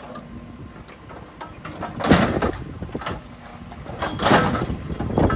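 Excavator bucket smashing a lawn mower: two loud metal crashes, about two seconds in and again about two seconds later, over the excavator's engine running.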